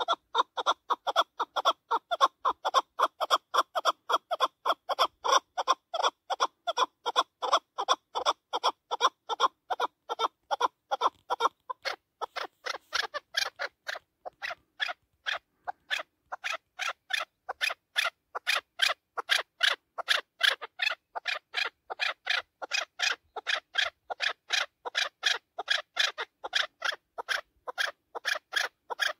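Chukar partridge calling a long, unbroken series of rapid, evenly spaced chuk notes. About twelve seconds in the notes turn thinner and higher-pitched.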